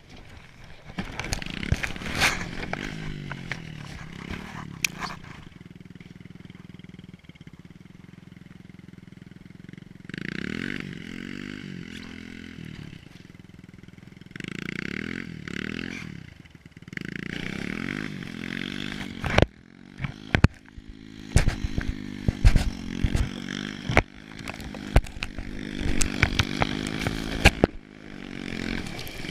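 Small pit bike engine revving up and easing off again and again as it tows a plastic sled over snow, with the sled scraping and rattling. In the second half a run of sharp knocks and thumps sounds over the engine.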